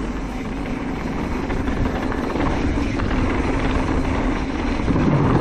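Mountain bike rolling along a trail, heard on the camera: wind rushing over the microphone, tyre noise and a steady whirring hum that grows slightly louder toward the end.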